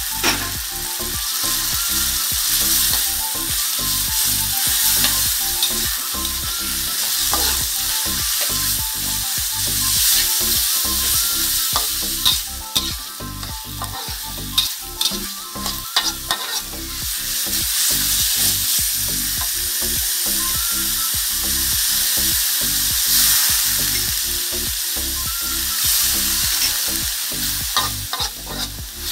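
Sliced pork sizzling as it is stir-fried in hot oil and red curry paste in a wok, the curry paste already fried until fragrant. A metal spatula scrapes and knocks against the pan, the strokes coming thickest about halfway through.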